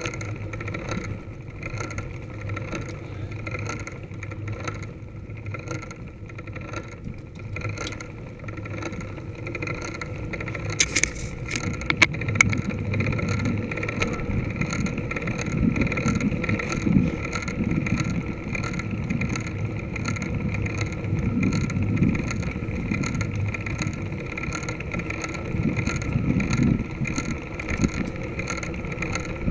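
Wind rushing over the microphone of a camera on a moving road bicycle, with tyre noise on tarmac. The low wind buffeting grows stronger about a third of the way in, and a few sharp clicks come at about the same time.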